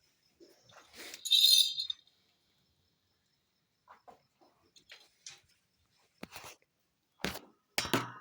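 Newborn goat kid bleating, one loud high call about a second in, followed by scattered short noises and two louder ones near the end.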